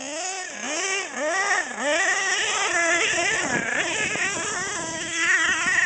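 HPI Savage XL K5.9 RC monster truck's big-block nitro engine revving, its pitch swooping up and down about twice a second with the throttle, then holding a higher, wavering whine as the truck drives on.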